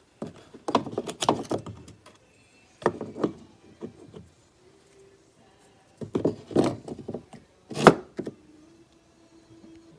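Small wooden number blocks being pulled out of and slotted into a wooden Christmas countdown calendar: several bursts of light knocks and clatters, with the loudest single knock near the end.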